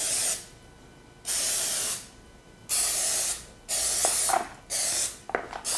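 Aerosol cooking-oil spray hissing in about five short bursts, roughly a second apart, as a cake pan is greased. A few light clicks and scrapes come in the second half.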